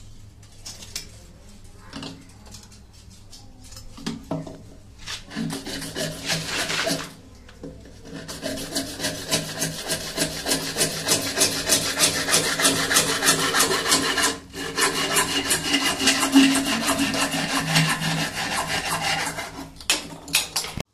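Hacksaw cutting through a PVC pipe in quick back-and-forth strokes. It stops for about a second partway through, then runs on with only a very brief pause.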